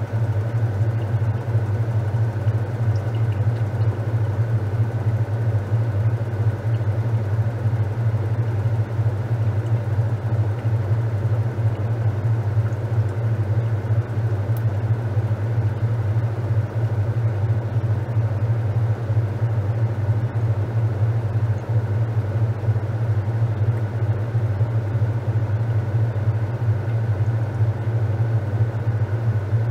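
Top-loading washing machine running with a steady low motor hum and a fainter high tone above it.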